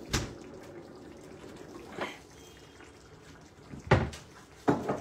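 Knocks and clatter from a kitchen wall cupboard being searched for the pepper, with four sharp knocks, the loudest about four seconds in as the cupboard door shuts. Under them a steady faint bubbling from the tomato sauce simmering on low heat.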